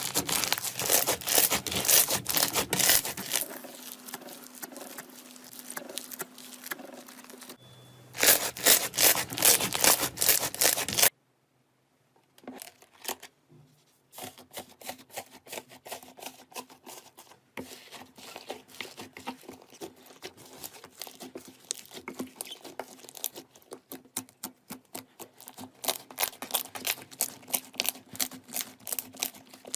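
Hands squeezing, pressing and stretching slime, with dense crackling, popping and clicking. The sound changes abruptly several times between short segments and drops almost to silence for a few seconds about eleven seconds in.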